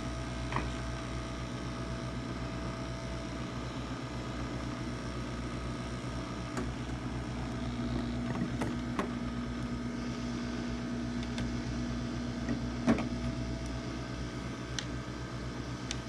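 Steady machine hum, like a small fan motor running, under a low electrical hum. A second lower tone comes in about halfway and stops near the end, and a few faint clicks sound, the loudest near the end.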